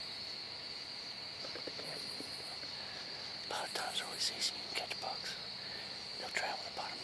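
Steady high-pitched trill of crickets. A few short, soft rustling sounds come about halfway through and again near the end.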